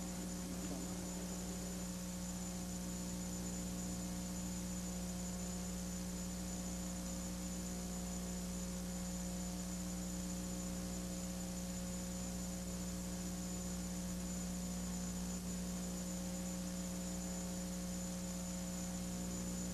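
Steady low electrical mains hum with faint higher overtones, unchanging throughout, with no other sound.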